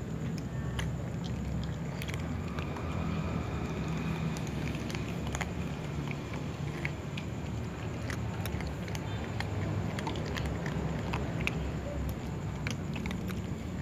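Cats eating dry kibble: scattered short, sharp crunches, over a steady low rumble.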